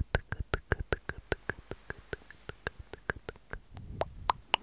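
A fast, even run of sharp clicks, about five a second.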